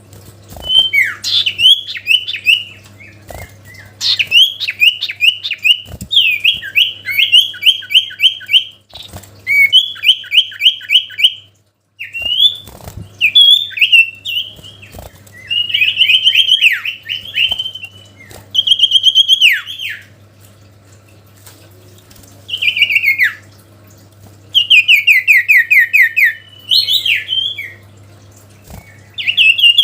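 A songbird, the bird known in Indonesia as the sirtu, singing loud phrases of rapid repeated whistled notes, many sliding downward, with short pauses between phrases. It is a territorial song used to call up a rival bird. A faint steady hum runs underneath.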